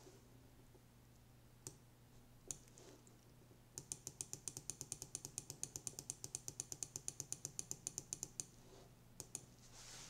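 Faint computer mouse button clicks: a few single clicks, then a quick even run of about six or seven clicks a second lasting over four seconds, then two more clicks near the end.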